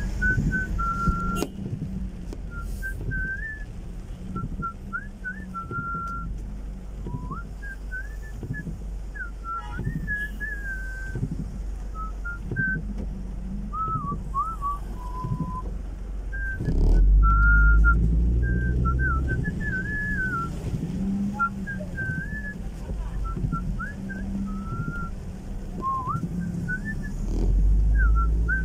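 A person whistling a wandering tune in short, wavering high notes, over the steady low rumble of a car driving. The rumble grows louder about 17 seconds in and again near the end.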